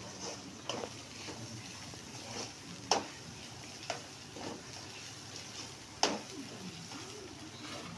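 Cooking sizzling in a pan while it is stirred, with a utensil knocking sharply against the pan four times; the loudest knocks are about three and six seconds in.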